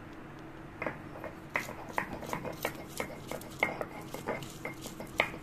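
Garlic cloves being crushed with a stone roller on a sil-batta grinding stone. The sound is a run of irregular sharp knocks and cracks, about two or three a second, starting about a second in.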